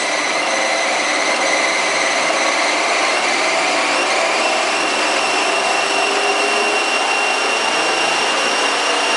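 Treadmill drive motor and rollers running a 16-inch-wide sanding belt with no workpiece: a steady whirr with a motor whine that steps up in pitch a few seconds in as the speed is raised toward its 10 mph top speed.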